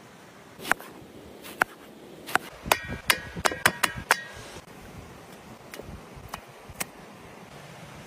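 A quick run of sharp knocks and clinks from hard objects, some with a brief ringing tone, bunched from about a second to four seconds in, followed by a few fainter taps.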